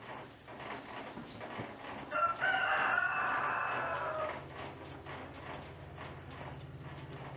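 A chicken gives one long pitched call about two seconds in, lasting about two seconds, over a low steady hum.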